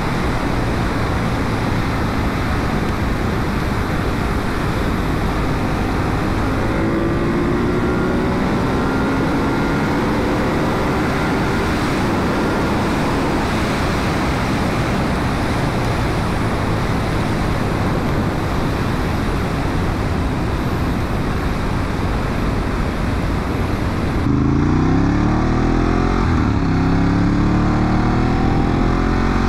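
Ducati 1198's L-twin engine running at road speed under heavy wind rush, its pitch rising and falling with the throttle. Near the end the wind hiss drops suddenly and the engine comes through more clearly, its pitch falling and then climbing again.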